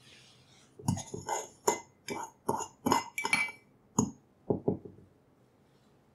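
Metal teaspoon stirring sugar and water in a ceramic mug, clinking against the sides about three times a second, then one more clink and two duller knocks.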